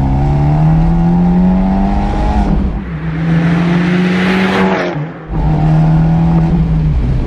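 Abarth 124 Spider's turbocharged 1.4-litre four-cylinder at full throttle in second gear, its exhaust note rising steadily through a sports cat, cross pipe and a Monza exhaust whose valve is seized open. About three seconds in, the car passes by with a whoosh that swells and falls away, and then a steady exhaust note returns.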